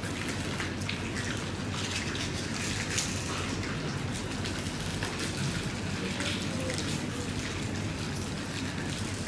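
Steady rain: an even hiss with scattered light ticks of drops.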